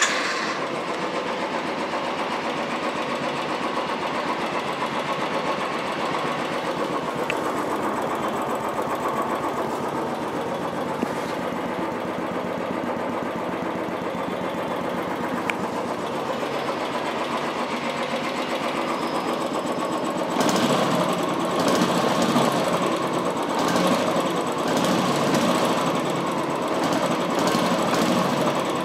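A Royal Enfield Classic Signals 350's single-cylinder engine idling through its stock silencer with an even beat. About two-thirds of the way through it becomes louder and rougher.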